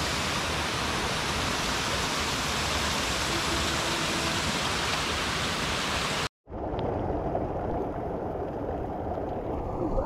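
Waterfall pouring into a rock pool, a steady, even rush of water. About six seconds in it cuts off for an instant and gives way to a quieter, duller rush of falling water.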